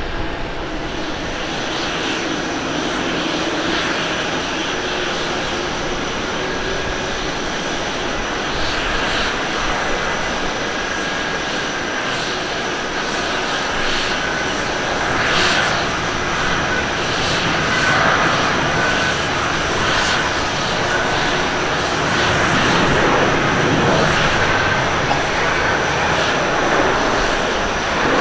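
Jet engines of an Air Do Boeing 737 at takeoff power: a steady roar through the takeoff roll that grows louder over the second half as the airliner accelerates and lifts off.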